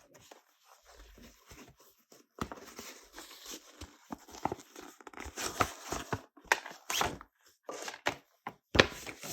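Paper and cardboard inserts being pulled out of a new planner cover and handled: irregular rustling and crinkling with scattered light knocks, and a sharper knock near the end.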